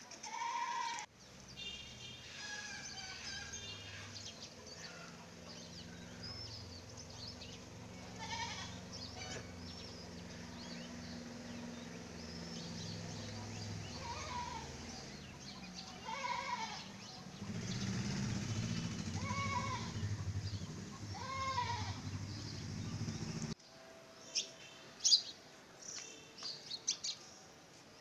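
Goats bleating off and on, short arched calls repeated about half a dozen times over a low steady hum. Sharp bird chirps come near the end.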